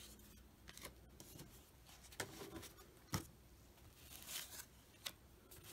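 Faint rustling and flicking of cardboard basketball cards being slid one by one off a hand-held stack: a handful of soft scrapes, the sharpest about three seconds in.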